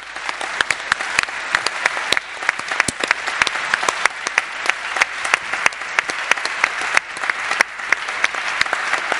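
A large theatre audience applauding: dense, steady clapping that builds up over the first second and keeps going.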